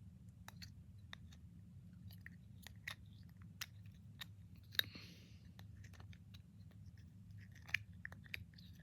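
Spoon stirring white glue and colouring inside a small plastic bottle: irregular sticky clicks and taps of the spoon against the bottle, a few sharper knocks among them, over a faint low steady hum.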